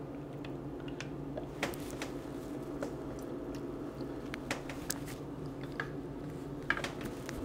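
Spoon stirring runny sauce in a slow cooker's stoneware crock, with flour just added to thicken it: soft wet squishing and scattered light clicks of the spoon against the crock, over a steady low hum.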